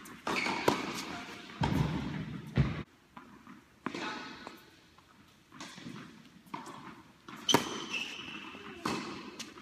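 Tennis rally: rackets striking the ball and the ball bouncing on a hard court, sharp irregular knocks echoing in a large indoor hall.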